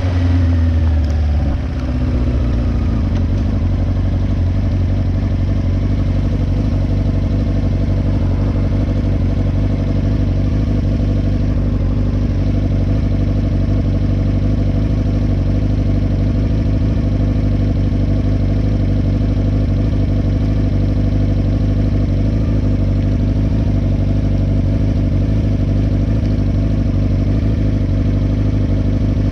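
Motorcycle engine slowing down, its pitch falling over the first two seconds, then idling steadily for the rest.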